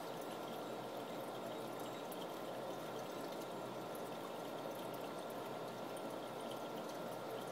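Steady trickle of running water in an aquarium tank, continuous and even.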